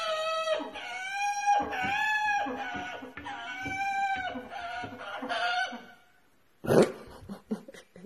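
Amazon parrot calling from inside a closed cabinet: a string of voice-like notes that rise and fall in pitch. Near the end the cabinet door clicks open, with a few light knocks after.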